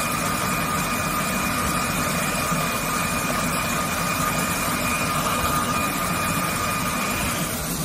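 Dazzini PD1500 diamond wire saw running steadily as its wire cuts through Carrara marble: a continuous machine rumble with a steady high whine, the whine dropping out near the end.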